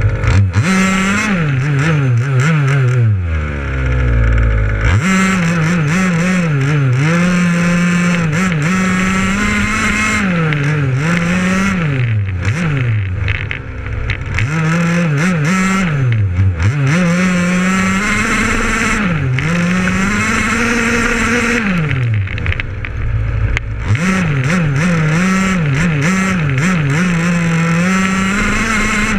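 Small two-stroke petrol engine of a 1/5-scale Baja RC buggy, running at the camera, revving up and down over and over as it drives. It drops back to idle twice for a couple of seconds, once early and once a little over two-thirds of the way in.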